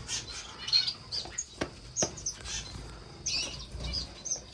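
Many finches chirping in short, high calls throughout, with two sharp clicks near the middle.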